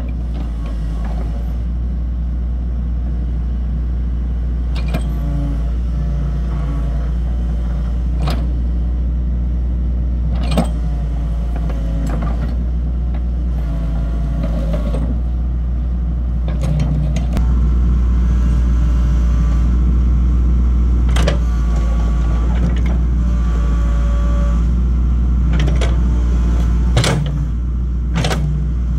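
Diesel engine of a tracked excavator running with a deep, steady drone while the machine moves, with sharp clanks and knocks from the tracks and steelwork and a whine from the hydraulics. The engine works harder a little past halfway, then eases off near the end.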